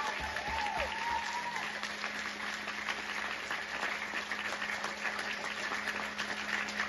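Audience applauding after a song, steady clapping throughout, with a few cheers in the first second or so.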